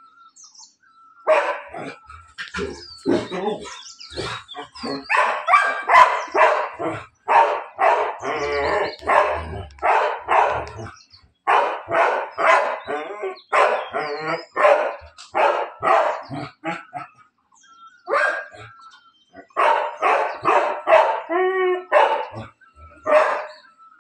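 Golden retriever and Labrador barking in rapid runs at a cat up on the roof, with short pauses and a wavering whine near the end.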